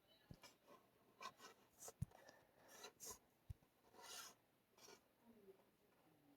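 Near silence broken by about eight faint, scattered clicks and soft rubbing noises.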